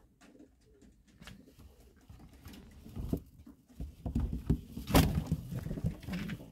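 French Mondain pigeons shuffling and flapping as a hand reaches among them, making irregular scuffs, knocks and feather rustles that grow louder partway through, the loudest knock about five seconds in.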